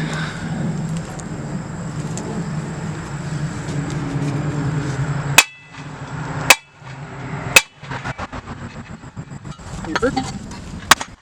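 Hammer blows on a wooden 2x4 block, driving a steel post spike into the ground: three hard strikes about a second apart, then lighter knocks and one more sharp strike near the end. Before the strikes a steady low hum runs and cuts off suddenly.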